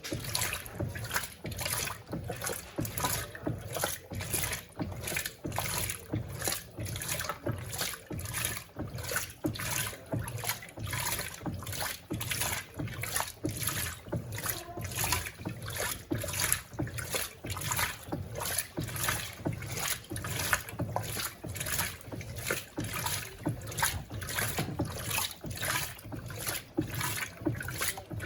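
Electrolux Turbo Compacta LTC07 washing machine agitating its load: water sloshing in the drum in an even rhythm, about one and a half swishes a second, over a steady low motor hum.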